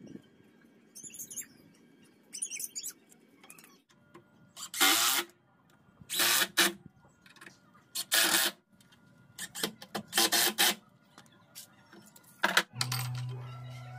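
Cordless drill driving screws into the wooden saw-table rail in a series of short bursts, about half a second each. A steady low hum starts near the end.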